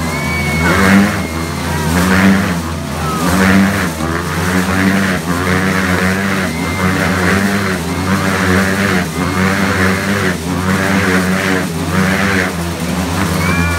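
Motorcycles running at high revs as they loop around inside a steel-mesh Globe of Death, the engine note rising and falling in a regular swell about once every second or so with each circuit.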